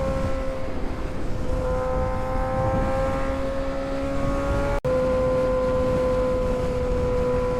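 Kawasaki ZX-6R 636 inline-four engine running at a steady speed while riding, its pitch holding nearly level, over a low rumble of wind noise. The sound cuts out for an instant about five seconds in.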